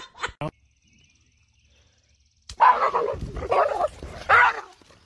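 A short burst of laughter trails off, then after about two seconds of near silence an animal calls loudly several times in quick succession.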